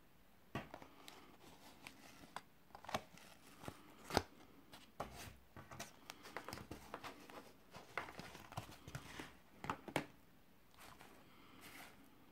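Cardboard burger box being opened by hand and the paper wrapping crinkled as the hamburger is lifted out: a run of irregular small taps, clicks and rustles that stops about two seconds before the end.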